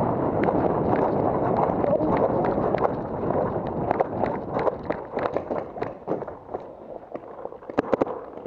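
A paintball player running on dry dirt, with footfalls and gear rattling, then sharp pops of paintball markers firing. A quick string of three or four pops comes near the end.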